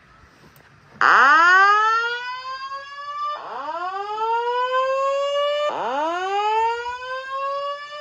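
Simplex voice-evacuation fire alarm speaker sounding the whoop evacuation tone that alternates with the spoken evacuation message. About a second in it begins a series of rising whoops, each sweeping upward and levelling off over about two seconds, three in all with a fourth starting at the very end.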